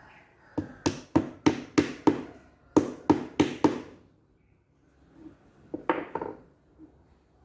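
Sharp hammer blows, about three a second: a run of about ten, a pause, then a quick cluster of four more.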